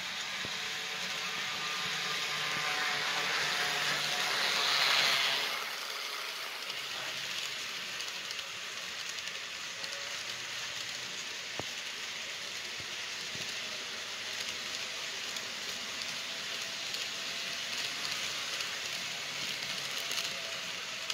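Model freight train rolling past on the layout track: a steady rushing of wheels and motors on the rails, swelling to its loudest about five seconds in, then running on evenly.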